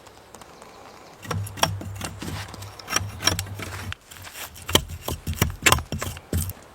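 A fast, irregular run of sharp knocks and clatter over a low steady hum, starting about a second in and breaking off briefly midway.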